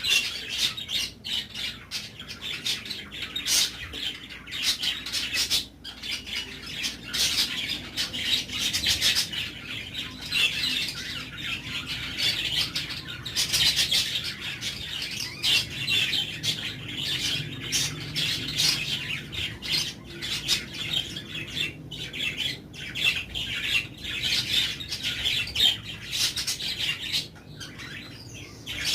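A chorus of caged birds chirping and squawking, with many short calls overlapping and no break.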